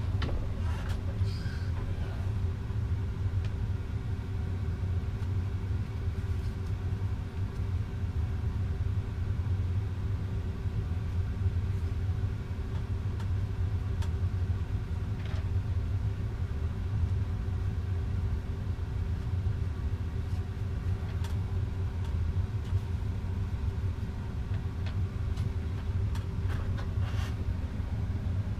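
Steady low rumble with a faint constant hum, unchanging throughout, with a few faint clicks on top.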